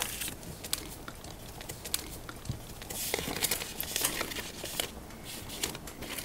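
Crinkling and rustling of things being handled at a table, with scattered small clicks and taps.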